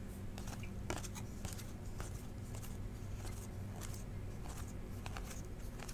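Faint light clicks and rustling of a stack of trading cards being handled and flipped through by hand, over a steady low hum.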